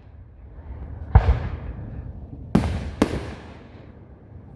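Fireworks bursting overhead: three booms, each trailing off in echo. The loudest comes about a second in and the other two follow close together later on.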